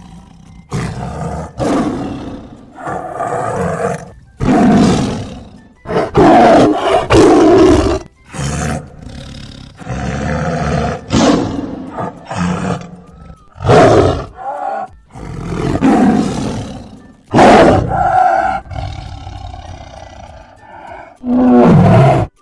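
A tiger roaring again and again, a dozen or so separate roars, each a second or two long, over soft children's background music.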